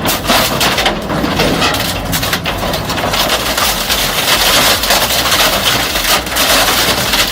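Industrial shredder crushing and splintering wood waste, a dense grinding din broken by many sharp cracks and snaps.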